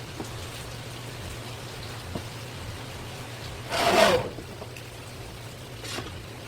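Water running and splashing, with a short, louder gush of water about four seconds in and a smaller one near the end.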